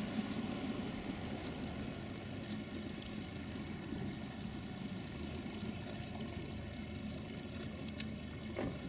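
Boat engine idling steadily with a low, even hum.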